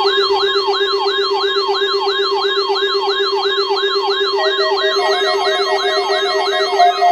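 Electronic siren-like alarm: a fast yelp that sweeps in pitch about three times a second over a steady low tone, starting suddenly. A second steady tone joins about four seconds in.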